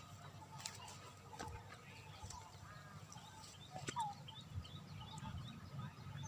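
Faint birds calling: a few short, scattered chirps over a low steady background rumble, with occasional light clicks.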